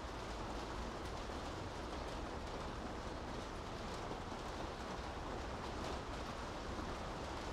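Steady rain falling on a city street: an even hiss of drops with a low rumble underneath.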